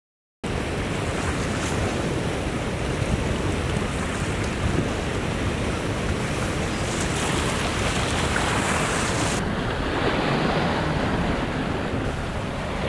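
Steady rushing wind and lake waves, with wind buffeting the microphone. It starts abruptly half a second in, and the high hiss drops away about nine seconds in.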